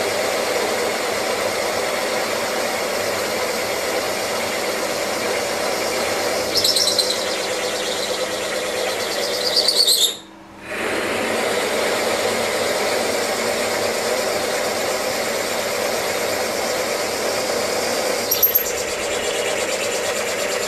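Milling machine spindle running with a 9/16-inch four-flute end mill in a drill chuck, plunge-drilling a cast plate under hand feed. The cut gives short high squeals several times, and the sound cuts out briefly about ten seconds in.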